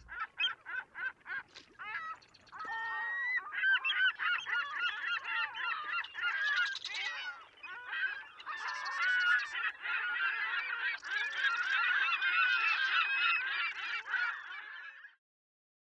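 A flock of gulls calling: a few separate squawking calls at first, then many overlapping calls, cutting off suddenly near the end.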